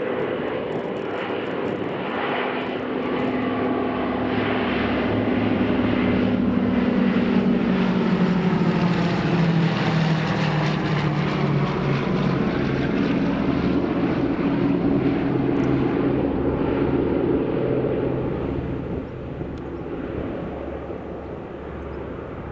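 Two Douglas C-47 Dakotas flying past in formation, their twin Pratt & Whitney radial engines droning. The drone grows louder, drops in pitch as the aircraft pass about ten seconds in, then fades as they fly away.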